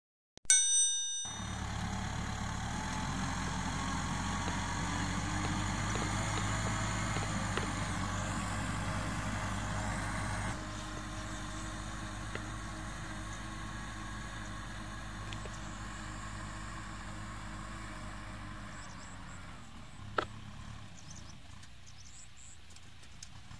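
A short chime, then the diesel engine of a Kubota tractor running steadily under load as it pulls a plough through dry ground. The sound drops somewhat about ten seconds in, and there is a single sharp click near the end.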